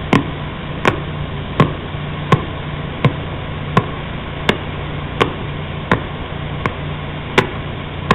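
Sonified radio pulsar signal: sharp clicks at an even pace of about one and a half per second over a steady hiss, each click one pulse of the star's rotation.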